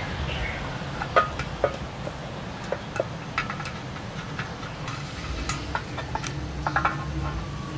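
Scattered light plastic clicks and knocks as the Yamaha Sniper 150's fuel pump module, with its fuel filter attached, is worked up out of the fuel tank opening, over a steady low background rumble.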